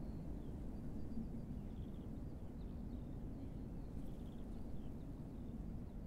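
Steady low wind noise from a blustery wind, with faint high chirps and short trills of small birds singing here and there.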